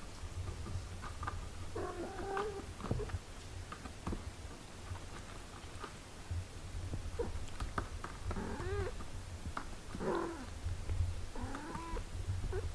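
Eight-day-old kittens mewing while they nurse: a short squeaky mew about two seconds in, then three more close together near the end, each bending up and down in pitch. A low steady rumble sits underneath, typical of the mother cat purring as she nurses.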